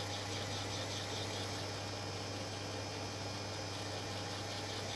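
Small LEGO electric motor running steadily, driving a plastic gear train with a continuous hum and whirr.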